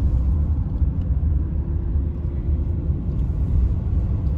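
Car driving, heard from inside the cabin: a steady low rumble of engine and road noise. A faint engine tone rises slightly and falls back in the middle.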